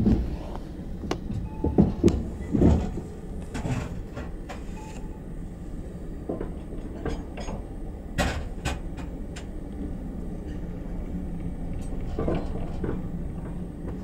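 Railway passenger carriage rolling slowly, heard from inside: a steady low rumble with irregular clanks and knocks, the loudest in the first few seconds and another cluster about eight seconds in.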